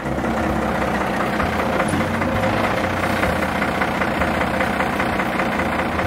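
Truck engine idling with a fast knocking rhythm. It starts suddenly and runs steadily.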